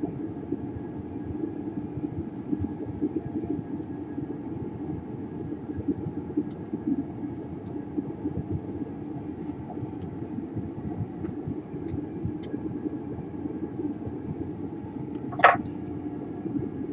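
A steady low rumble runs throughout, with faint scattered ticks of small tools on a workbench and one sharp metallic clink about fifteen seconds in.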